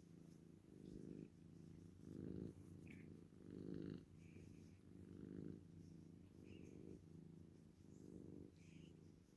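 Kitten purring steadily while being stroked, the purr swelling and easing with each breath in and out: a contented purr.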